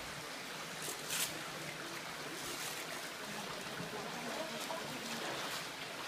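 Steady rush and trickle of a shallow creek, with a brief sharp noise about a second in.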